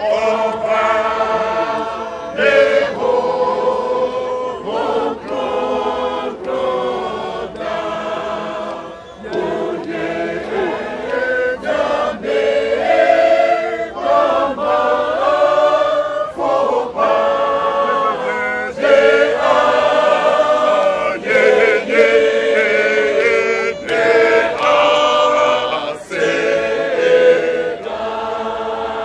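Large mixed choir of women and men singing a hymn in harmony, held notes moving phrase by phrase with brief breaks between lines.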